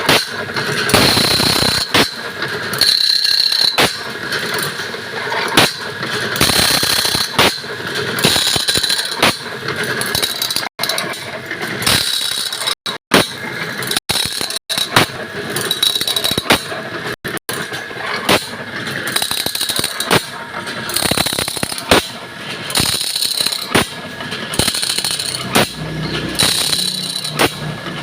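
Sawmill saw-blade sharpening machine running, its grinding wheel squealing against the teeth in a regular cycle of about once a second as it works along the blade tooth by tooth.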